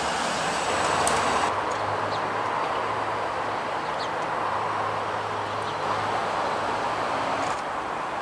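Distant diesel train approaching: a steady low engine hum under a continuous rolling rumble. A few faint bird chirps sound over it.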